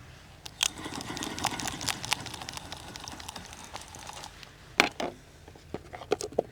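Handling noise from the angler's gear: a rapid run of clicks and rattles for about four seconds, then a loud knock and a few sharper knocks near the end.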